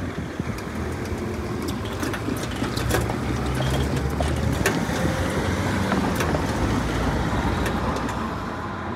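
A road vehicle driving over the level crossing: its engine and tyre noise builds to a peak about six seconds in and then fades, with a few sharp clicks along the way.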